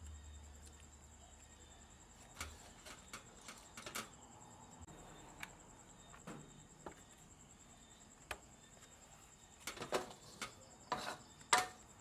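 Steady high-pitched chirring of night insects, most likely crickets, with scattered light clicks and knocks that come more often near the end.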